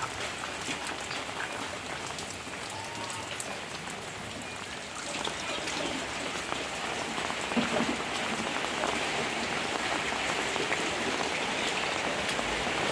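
Heavy rain falling steadily, getting louder about five seconds in.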